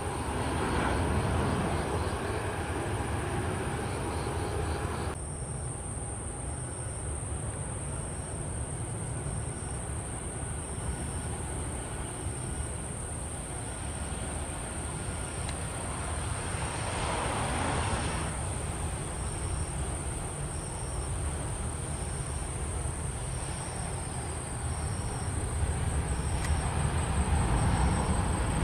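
Jet engine noise at an airfield, a steady low rumble: first a business jet on the runway, then, after a cut about five seconds in, a Boeing 737-800 airliner on final approach and landing, growing louder near the end.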